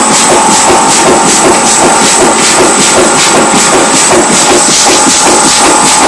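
Old stationary diesel engine with a big flywheel running steadily, very noisy, with an even knocking beat of about three a second and a steady high whine over it.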